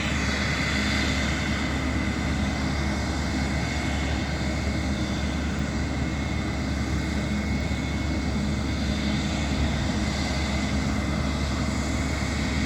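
Embraer E195-E2 jet engines (Pratt & Whitney geared turbofans) running steadily on the ground, a continuous rumble with a thin, steady high whine and no spool-up.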